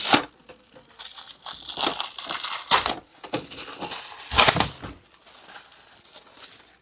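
Packaging being handled and torn open by hand: continuous rustling with three louder bursts, near the start, just before three seconds in and around four and a half seconds in.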